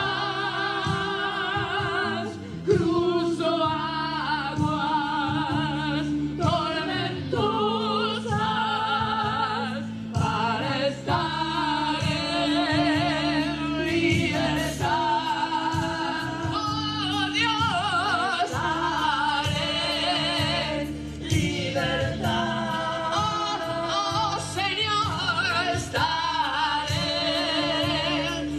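A woman singing a slow song with strong vibrato over a steady, sustained accompaniment, amplified through loudspeakers.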